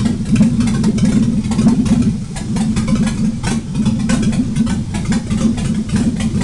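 GM Vortec 4.3 V6 engine idling steadily with no exhaust system fitted, so the exhaust pulses come straight from the open manifolds. It is running again after about six years standing.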